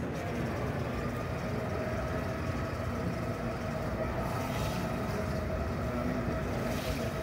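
Vehicle motion platform playing back a recorded driving move: a steady rumble with a faint hum running through it.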